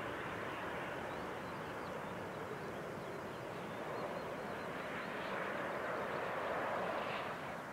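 Jet engine noise from a Boeing 737-900 on final approach, its CFM56-7B turbofans heard as a steady rushing roar that swells slightly and then drops off near the end.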